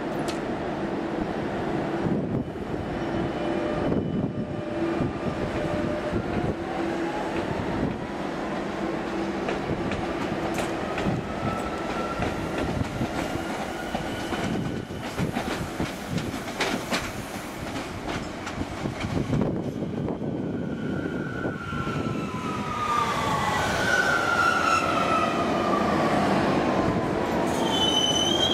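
Metrovalencia electric train arriving at a station over a steady hum: its motors whine in a slowly rising tone, then in several falling tones as it brakes, and a high-pitched squeal starts near the end.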